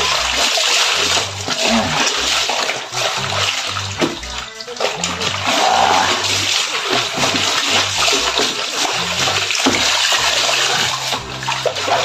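Water splashing and running in a top-loading washing machine tub while it is handled, with background music under it.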